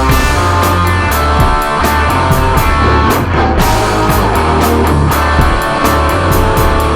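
Distorted electric guitar played through a BOSS GT-1000 high-gain X-Crunch patch with a treble tube screamer. It plays over a looped drum beat and bass line.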